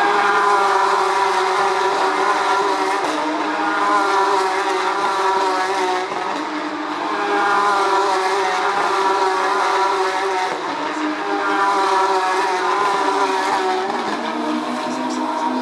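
Porsche 911 GT3 Cup race cars' flat-six engines passing one after another at high revs, the sound swelling and easing with brief lulls about six seconds in and near the end.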